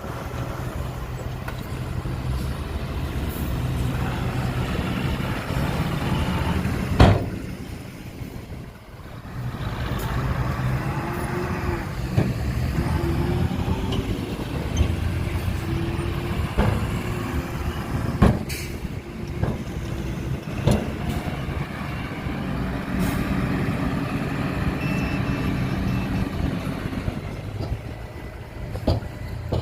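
Heavy diesel engine of earthmoving machinery running steadily, with several sharp knocks. The loudest knock comes about seven seconds in and is followed by a short lull in the engine sound.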